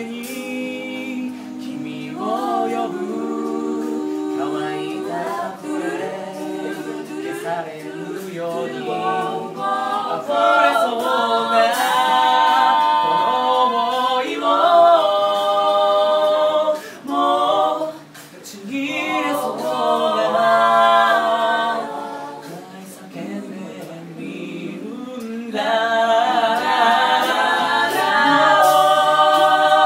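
A mixed group of men and women singing a cappella in close harmony, several voices at once with no instruments. The singing briefly drops away about seventeen seconds in, then comes back in full.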